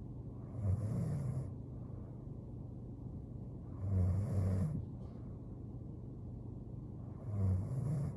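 A young woman snoring in her sleep: three snores, one about every three and a half seconds, each lasting just under a second, over a steady low hum.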